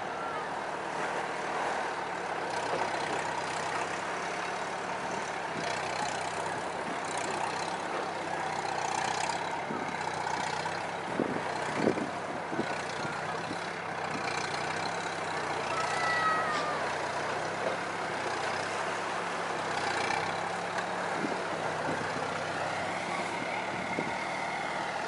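Small beach tractor's engine running under changing load, its note stepping up and down as it works a motorboat on the sand, with a few sharp knocks around the middle. Small waves wash on the shore behind it.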